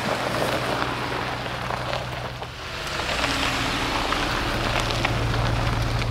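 A vehicle on the move: a steady low engine drone under a rushing haze of road and wind noise, the drone growing stronger about halfway through.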